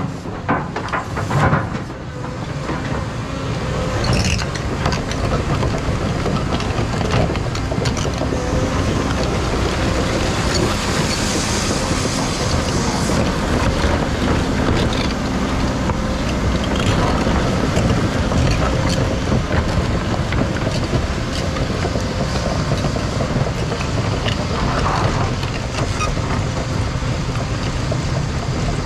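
Caterpillar 335 excavator working steadily, its engine and hydraulics running under load, with sharp knocks of rock in the first couple of seconds.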